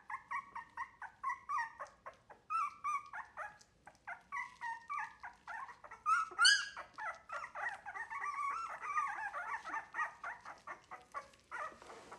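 Three-week-old wire-haired miniature dachshund puppies whimpering and squealing in a string of short, high cries that run together into near-continuous crying about halfway through: the pups protesting at being offered milk from a bowl by a person instead of nursing from their mother.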